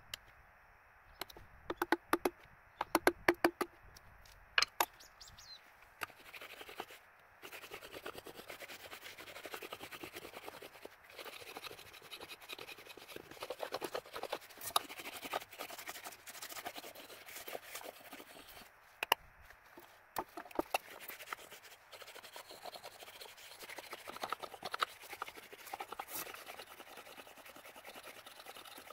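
A run of sharp clicks, then continuous scratching and scraping with scattered ticks.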